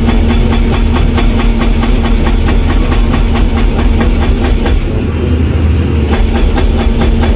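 A loud machine running, with a steady hum and a rapid, even clatter of knocks that cuts off suddenly at the end.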